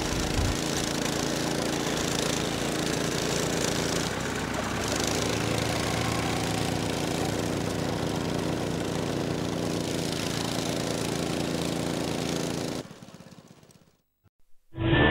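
An engine running steadily at a constant speed, with a noisy haze over it; the sound fades out near the end.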